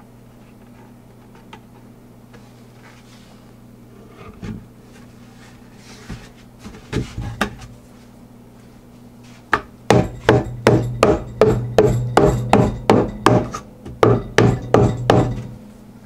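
Light knocks and scrapes of wooden boxes being handled, then from about nine and a half seconds a quick run of rubber-mallet blows on a pine beehive body, roughly three a second, knocking the glued biscuit joint tight.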